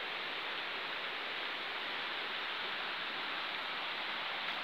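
Steady rushing of a river flowing over shallow rapids.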